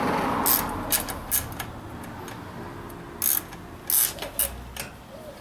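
Wrench loosening a bicycle's axle nuts: a series of sharp, irregular metallic clicks.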